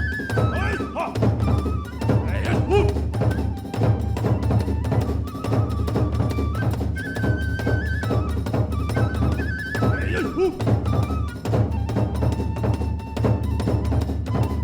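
Kagura hayashi music: a transverse flute holds and steps between high notes over continuous drumming and clashing hand cymbals.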